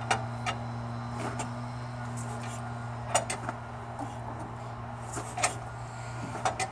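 A few scattered light clicks and knocks from the starting handle of a 1961 Land Rover Series II being worked between hand-crank pulls, with the cold engine not firing. A steady low hum lies underneath.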